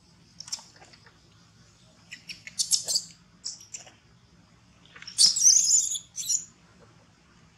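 Baby long-tailed macaque squealing in short high-pitched bursts, loudest about five seconds in, over a steady high insect drone.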